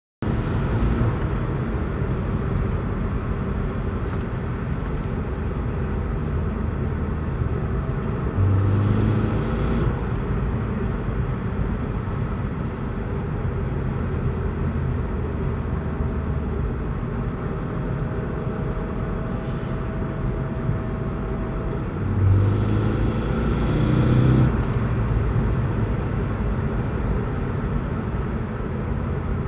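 2002 Saab 9-3 turbocharged engine running while driving, with two spells of acceleration, about 8 seconds in and about 22 seconds in, where the engine pitch rises and it gets louder. Under boost it makes a scraping, grinding noise, which the owner takes for a turbocharger in need of a rebuild.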